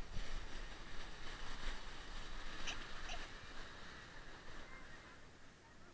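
Toboggan sliding over snow: a rough scraping hiss, with wind on the microphone, that dies away over the last couple of seconds.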